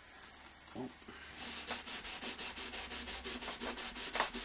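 Track rubber, an abrasive cleaning block, rubbed back and forth along model railway rails in quick even strokes, about five a second, starting a little over a second in. It is cleaning dried residue off the rail tops after the ballast has been glued and wetted.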